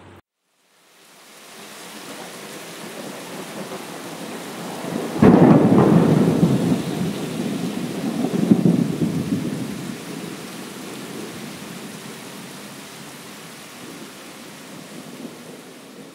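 Thunderstorm: steady rain, then a sudden thunderclap about five seconds in that rumbles on for several seconds, swelling once more before dying back under the rain.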